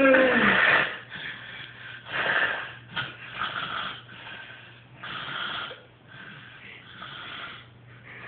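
A woman snoring in her sleep: a loud snort sliding down in pitch at the start, then rough, wheezy breaths about every two seconds that grow fainter.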